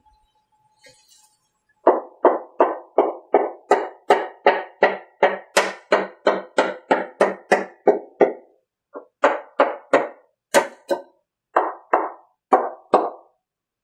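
Repeated tapping on a fiberglass fuselage mold to release the male mold, about three strikes a second, each ringing briefly at the same pitch. It pauses for under a second past the middle, then goes on less evenly.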